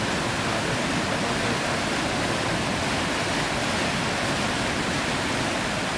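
Steady rush of river rapids: fast, high, churning whitewater running over rocks.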